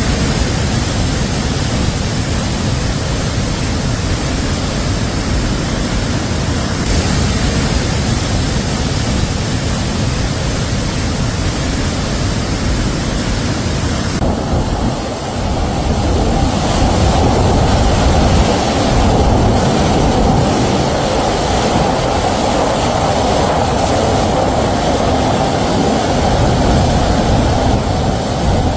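Floodwater rushing with a loud, steady noise after torrential rain. The sound changes abruptly about halfway through.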